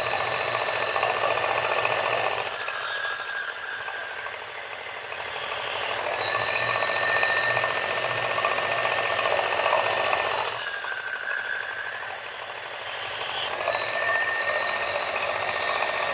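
Work Sharp powered belt sharpener running steadily with a coarse X65 abrasive belt, while a stainless steel folding-knife blade is drawn across the belt twice, each pass a loud hissing grind of about two seconds.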